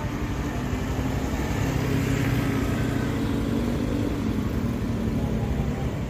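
A motor vehicle engine running steadily close by, with a low wavering hum under dense noise; it drops away near the end.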